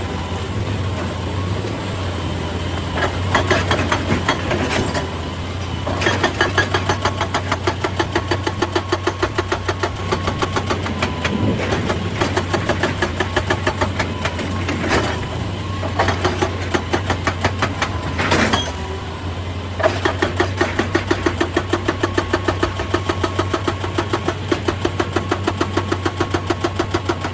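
Excavator's diesel engine running steadily, with long stretches of rapid, regular hammering, about five blows a second, from a hydraulic rock breaker working stone, stopping briefly a few times.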